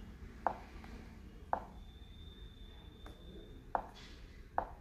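Four short, sharp clicks, spaced irregularly, as the TV's media-menu selection is stepped with remote-control buttons. A faint, steady high whine sounds for about two seconds in the middle.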